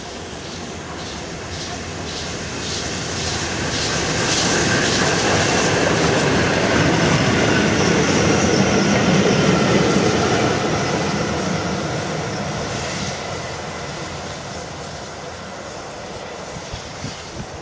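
LNER A1 class 4-6-2 steam locomotive No. 60163 Tornado running light with a single coach, passing close by. A quick rhythmic beat on the approach builds into a loud rush of wheels on rail about eight to ten seconds in, then fades as the coach draws away.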